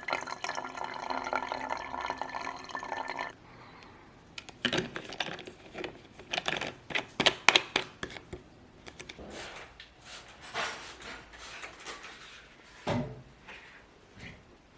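Water running from a tap, cut off abruptly about three seconds in, then a run of short clattering knocks and taps of hard objects being handled, loudest in the middle.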